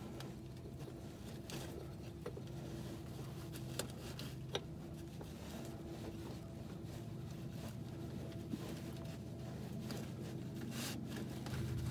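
Faint handling noise with a few small clicks and rustles as a plug is fitted by hand over the bagged oil filter under a diesel pickup, over a steady low hum.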